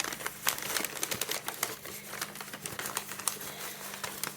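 Packing material around a small orchid crinkling and crackling in quick, irregular clicks as it is unwrapped by hand.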